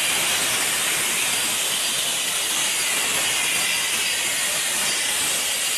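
Typhoon storm noise: wind and ferocious surf making a steady, unbroken rush.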